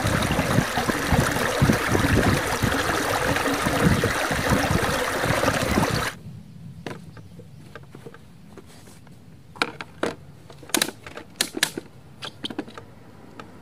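Water from a small stream splashing and gurgling over rocks, cutting off abruptly about six seconds in. Then a quiet stretch with a series of light clicks and taps as a portable desk fan is handled and set down on a wooden table.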